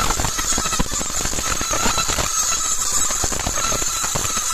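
Laser marking machine engraving the steel shank of a rifle barrel: a steady high whine with a dense, fine crackle as the beam throws sparks off the metal.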